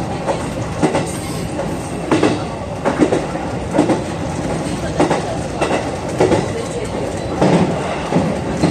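JR 221 series electric train running at speed, heard from inside the front car: a steady rumble with the clickety-clack of the wheels crossing rail joints, sharp clicks often in pairs, about once a second.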